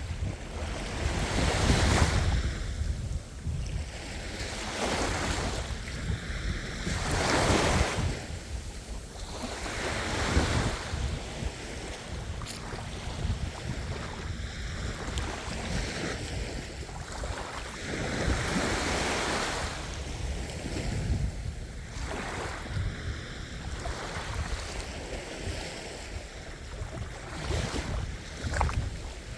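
Ocean waves breaking and washing in, surging louder every few seconds and then falling back.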